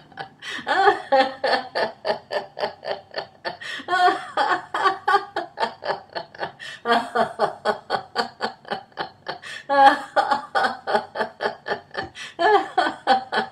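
A woman laughing heartily in rapid 'ha-ha-ha' pulses, about four or five a second: deliberate laughter-yoga laughter. It comes in several long runs, each starting loud and trailing off.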